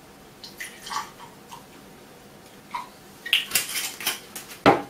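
Vodka poured from a glass bottle into a glass, glugging a few times. Later come glass clinks and handling, with one sharp knock near the end, the loudest sound.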